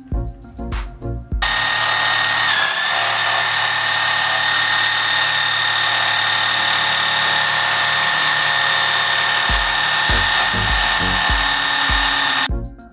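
Dremel Moto-Saw compact scroll saw starting about a second and a half in and running steadily, its motor giving a loud, even whine as the blade cuts a thin white sheet; the pitch sags briefly about a second after it starts, then holds.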